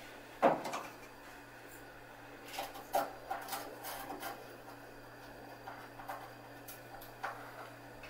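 Screwdriver working the T20 Torx screws on the sheet-metal frame of a Miele washing machine: scattered light clicks and knocks, with a sharper knock about half a second in and a run of small clicks a few seconds later.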